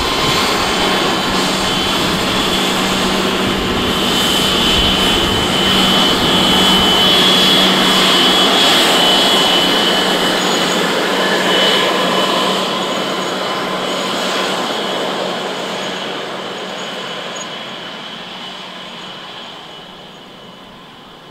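Embraer Legacy 600 business jet taxiing past, its two rear-mounted Rolls-Royce AE 3007 turbofans running at taxi power: a steady rush with a high whine, loudest about eight seconds in, then fading steadily as the jet moves away.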